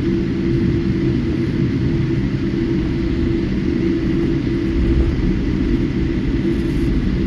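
Cabin noise inside a Boeing 787-8 airliner with GEnx-1B turbofans: a steady, even rumble of engines and airflow, with a low steady hum and a faint high tone above it.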